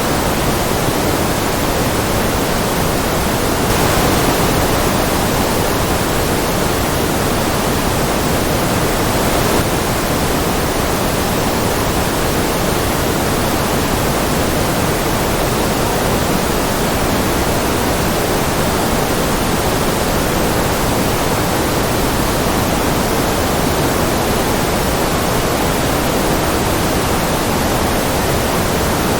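Continuous white noise: an even, steady hiss that does not change.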